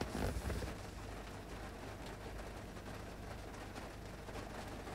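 Steady, faint rain and car noise heard from inside a car's cabin, with a brief louder noise at the very start.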